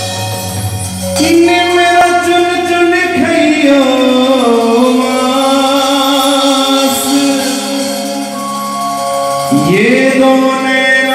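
Live Sufi performance: a male singer holding long, sliding wordless notes into a microphone over a live band with keyboard and drum kit, the voice jumping up in pitch near the end.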